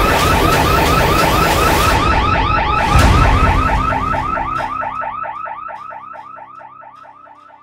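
Electronic alarm sounding, a fast run of rising chirps several times a second, over a dense noisy bed. A sudden loud hit comes about 3 s in, and then the alarm fades away.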